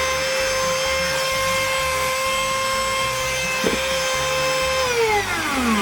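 Ryobi P460 18-volt cordless rotary tool spinning free at its high speed setting, a loud, steady high-pitched whine. Near the end the whine falls in pitch as the tool spins down.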